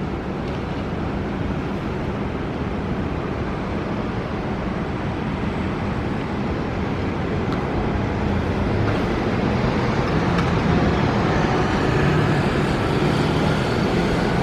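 Steady city road traffic noise that slowly grows louder toward the end as a light rail tram draws near.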